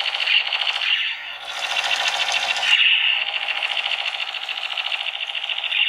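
3301 battery-powered toy gun's electronic firing sound effect playing from its built-in speaker: a rapid rattling machine-gun burst, with a tone that swells every couple of seconds. A hissier stretch runs from about one and a half to nearly three seconds in.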